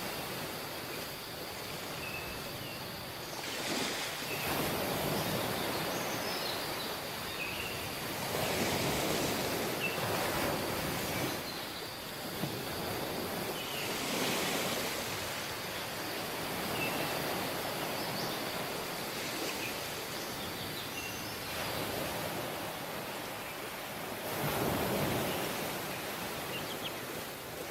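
Sea waves breaking and washing up on a tropical beach, swelling in loudness every few seconds. Faint short chirps sound now and then above the surf.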